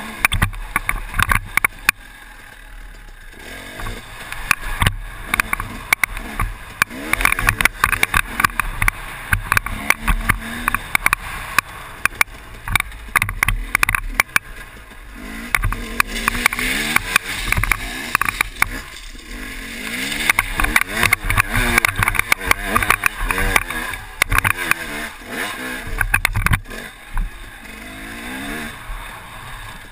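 KTM 250 EXC two-stroke enduro engine revving up and down over and over as the bike climbs and descends steep dirt slopes, with frequent knocks and rattles and wind noise on the helmet-mounted camera.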